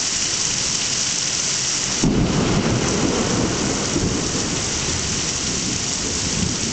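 Torrential rain falling with a steady hiss, and a roll of thunder that breaks in suddenly about two seconds in and rumbles on underneath.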